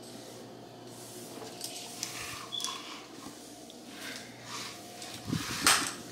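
Quiet scuffs and small clicks of a broom and plastic dustpan sweeping spilled seasoning off a wood floor, with one louder brushing noise near the end, over a faint steady hum.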